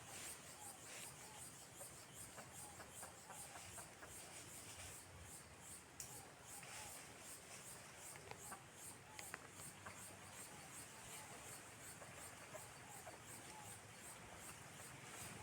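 Quiet countryside ambience: faint, steadily pulsing high insect trilling with a few faint short chirps and small ticks.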